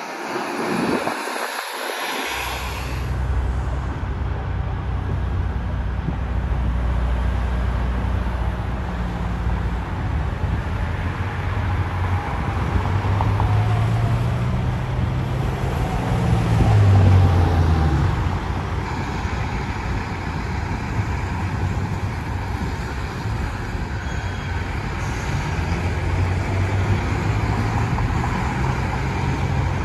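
Big-rig diesel engines running at low speed. There is a steady low rumble that rises and falls in pitch as a truck pulls through its gears, loudest about 17 seconds in, with cars passing.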